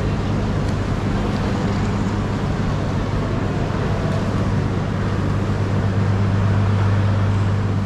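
Steady low mechanical hum over a constant rushing noise, swelling slightly near the end.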